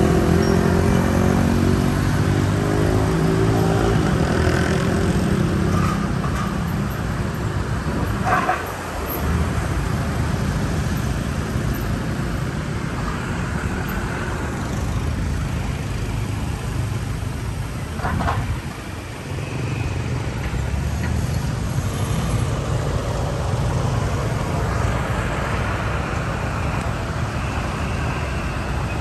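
Road traffic at a junction: a steady low rumble of motorbike and car engines, with one vehicle accelerating away at the start. Two brief sharp sounds come about ten seconds apart.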